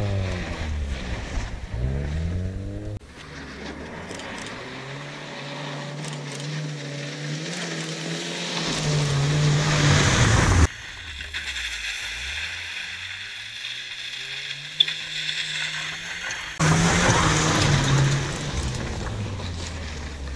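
Car engine revving hard and dropping back again and again as a car is driven quickly around a cone course in an autotest. It gets loudest as a small hatchback passes close about ten seconds in, and the sound changes abruptly a few times.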